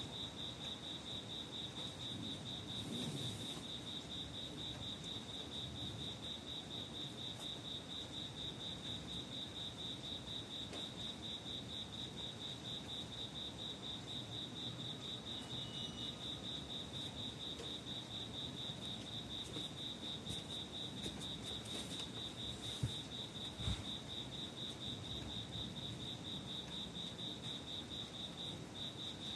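A cricket singing a steady, high-pitched pulsing trill, a few even beats a second, with a short break near the end. Two faint taps sound about three quarters of the way through.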